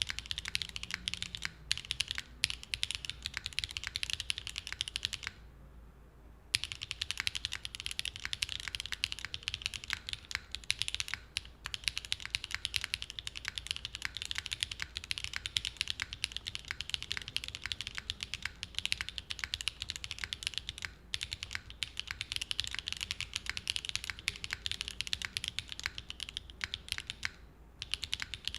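Mechanical keyboard typing: a QK60 with Gateron Smoothie linear switches on a POM plate and GMK keycaps, keys struck in fast continuous strings of clacks. The typing stops for about a second roughly five seconds in, then resumes.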